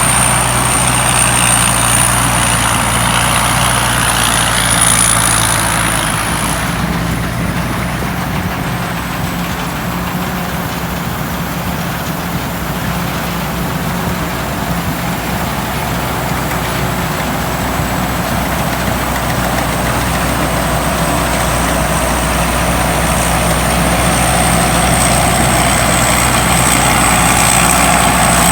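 Combine harvester running steadily, its engine drone accompanied by a thin high whine that dips about seven seconds in and comes back later.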